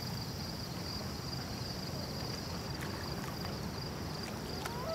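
Outdoor ambience of insects chirring in a steady, evenly pulsing high band over a low, even rumble.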